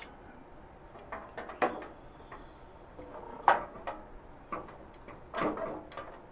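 A few scattered knocks and clatters of a metal Coleman camp stove's parts being handled, with one sharper knock about three and a half seconds in.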